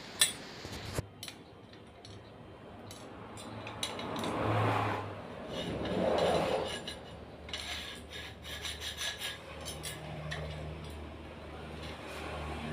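Handling noise from a softbox's Bowens-mount speedring being turned over in the hands: rubbing and scraping, with two louder rustling swells about four and six seconds in and scattered light clicks.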